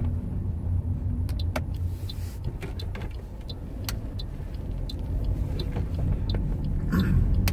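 Low, steady rumble of a car's engine and road noise heard from inside the cabin while driving, with a few scattered light clicks.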